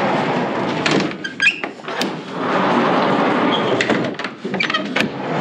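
Wooden stable doors being worked by hand: sharp metal clacks of their slide-bolt latches and knocks of the doors, over a steady rushing noise. Several clicks come in the first two seconds and another cluster near the end.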